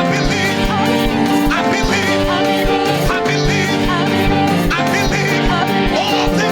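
Live worship band music with a steady kick-drum beat under sustained chords and a wavering melody line.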